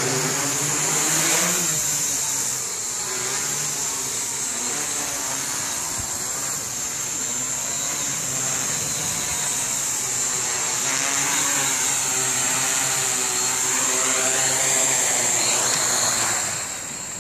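DJI F450 quadcopter's four 950 kV brushless motors spinning 10x4.5 slow-flyer propellers, a continuous buzz whose pitch drifts up and down with throttle, over a steady high whine.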